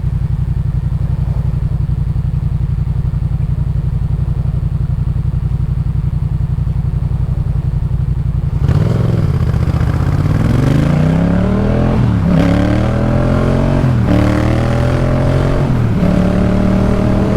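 Yamaha MT-07's 689 cc parallel-twin running through a Jeskap K4 full aftermarket exhaust. It holds steady at low revs for the first half, then about nine seconds in it opens up and accelerates hard, the note climbing and dropping back with several upshifts.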